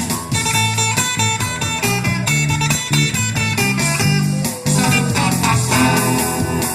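Music led by plucked guitar with a bass line, over a steady beat.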